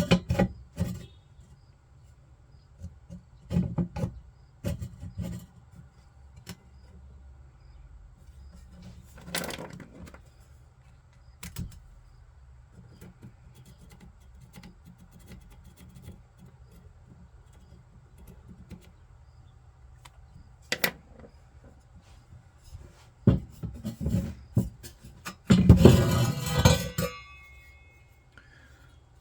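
Metal parts and tools being handled on a workbench: scattered clinks and knocks, with a louder, harsher stretch lasting about a second and a half near the end.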